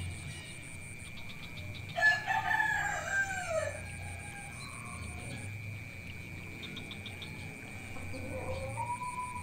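A rooster crowing loudly about two seconds in, the call dropping in pitch at its end. A second, fainter crow starts near the end.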